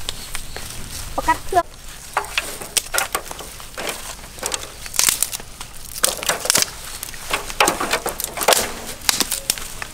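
Dry twigs snapping and clattering as they are piled into a rusty metal bucket stove as kindling: a rapid, irregular string of sharp cracks and clicks.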